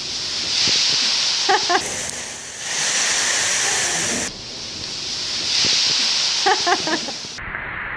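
A large load of foam packing peanuts pouring down onto a person: a loud rushing, rustling hiss that breaks off and starts again several times. Short pitched voice sounds come about a second and a half in and again near the end.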